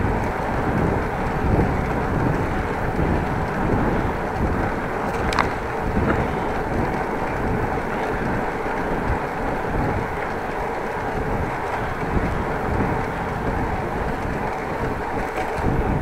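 Wind buffeting an action camera's microphone and tyre rumble from a bicycle riding along a road, with a faint steady hum underneath. One short click about five seconds in.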